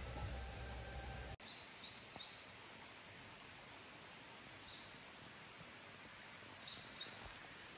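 Faint outdoor ambience: a steady high insect hum cuts off abruptly about a second and a half in, leaving quieter background noise with a few faint, short high chirps from birds or insects.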